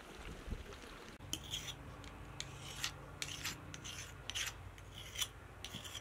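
A kitchen knife being sharpened on a hand-held stone. Starting about a second in, the blade rasps back and forth across the stone in short scraping strokes, about two or three a second.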